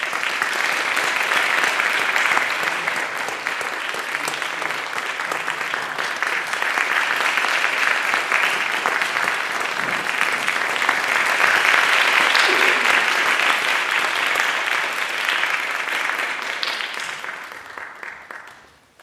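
Audience applauding: a long round of steady clapping that swells around the middle and dies away over the last couple of seconds.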